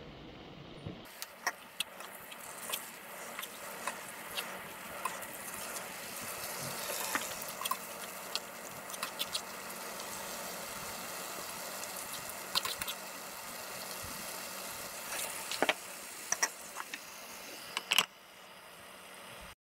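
Pickled mustard greens sizzling in a stainless frying pan over a portable gas burner, with chopsticks clicking against the pan as they are stirred. Near the end a wooden cutting board knocks down onto the pan as a lid and the sizzle goes quieter.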